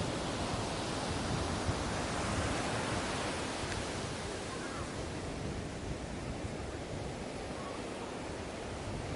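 Ocean surf washing on a beach: a steady rushing hiss of breaking waves that swells a little in the first few seconds and then eases off.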